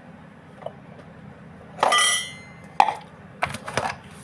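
A drinking vessel clinks once, ringing briefly in clear high tones, followed by a few sharp clicks and knocks.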